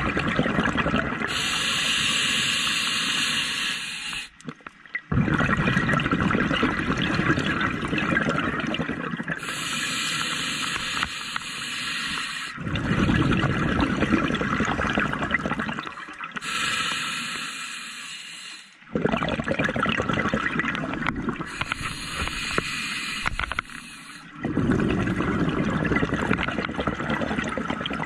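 Scuba diver breathing through a regulator underwater: a hissing inhale through the demand valve alternates with a longer rush of exhaled bubbles, four breaths in turn.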